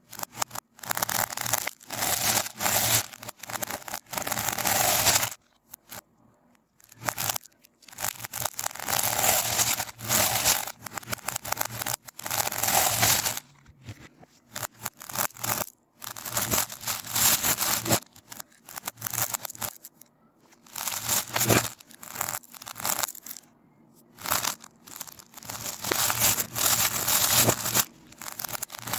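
Slime being squeezed and worked by hand, giving crackling, popping sounds in bursts a few seconds long with short pauses between.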